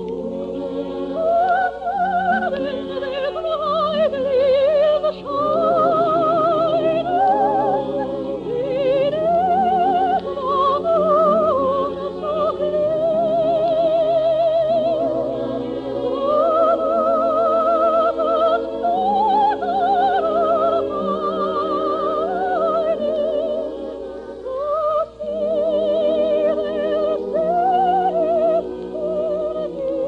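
Operatic soprano singing in long phrases with a strong, wide vibrato over sustained orchestral accompaniment, breaking briefly about five seconds in and again near the 25-second mark.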